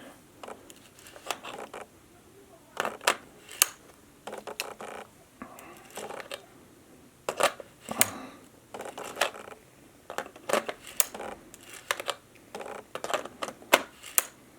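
Irregular metallic clicks and short scrapes of a 70-200 mm lens being twisted off and back onto a third-party JJC lens mount adapter on a Canon EOS R, with handling of the gear in between.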